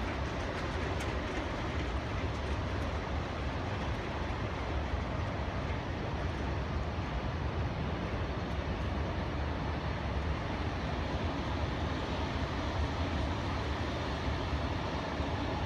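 Freight train cars rolling along an elevated rail viaduct: a steady, unbroken rumble of wheels on rails.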